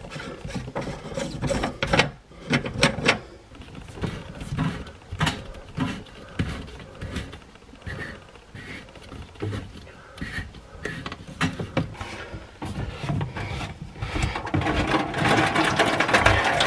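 Knocks, clicks and scrapes of a black plastic sink P-trap as its slip nuts are unscrewed by hand and the trap is worked loose. Near the end, trapped water starts pouring out of the trap and splashes into an aluminium foil pan, getting louder.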